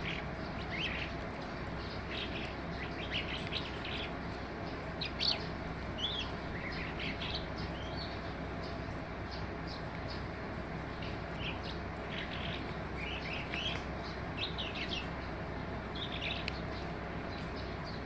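Skylark singing: quick runs of high chirps and trills, broken by a pause of a few seconds in the middle, over a steady background hum.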